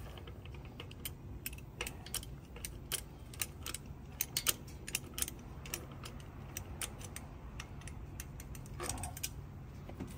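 Light, irregular metallic clicks and clinks of hand tools and wheel hardware as a technician works at a semi-trailer wheel hub, over a steady low hum.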